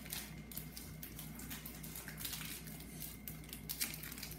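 Foil Pokémon booster-pack wrappers crinkling and rustling in a quick run of small crackles as they are torn and cut open by hand.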